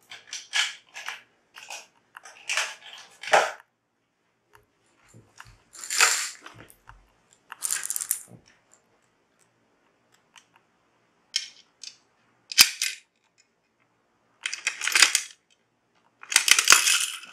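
Toy coin-operated gumball machine filled with M&M's being worked: the coin and twist-knob mechanism clicks and rattles in short bursts with pauses between, and a longer rattle near the end as the candy comes out.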